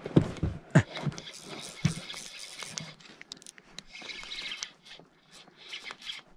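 Oars of an inflatable rowing boat working the water: a few knocks and thumps in the first couple of seconds, then splashing and dripping water with small clicks.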